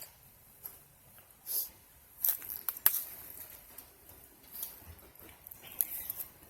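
Scattered light clicks and brief rustles of handling, the loudest a sharp click about three seconds in, with no motor running.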